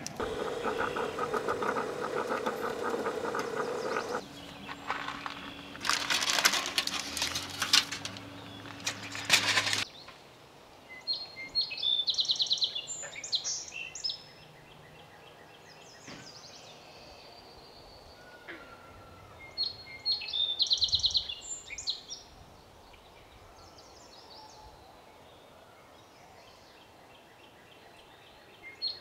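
A songbird gives short bursts of rapid chirping, three times several seconds apart, over quiet woodland ambience. The first ten seconds hold a louder steady-pitched sound that cuts off suddenly.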